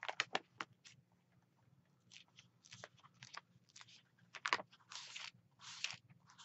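Faint paper rustling and crackling as book pages are turned and handled: a scatter of short clicks and crinkles, with a couple of longer rustles past the middle.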